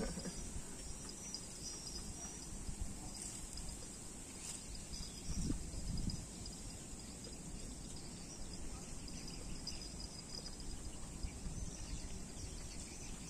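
Steady high chirring of insects, over a low rumble of wind on the microphone that swells briefly about five and a half seconds in.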